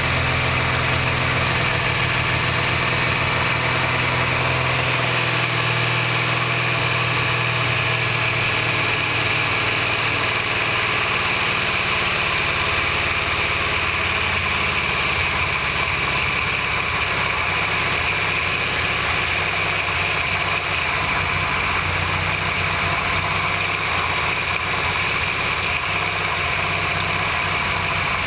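Carburetted car engine idling steadily while its carburettor idle adjustment is being turned down toward the lowest speed it will hold without stalling.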